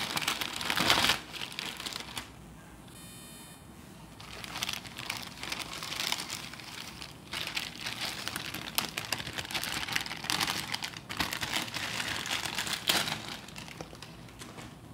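Thin plastic wrapping crinkling and rustling as a pack of scrub sponges is pulled out of it, in uneven bursts with a short lull about two seconds in. It fades near the end.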